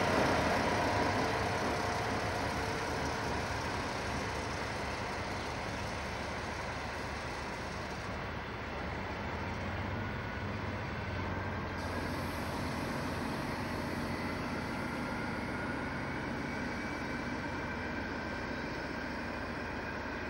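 A pair of DB class 218 diesel-hydraulic locomotives running and drawing away. Their engine noise fades over the first several seconds, then holds steady, with a thin whine slowly rising in pitch in the second half.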